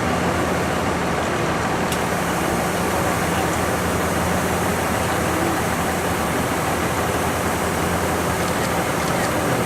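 Steady machinery hum and hiss from a JR Central 383 series electric train, with a faint constant low tone underneath.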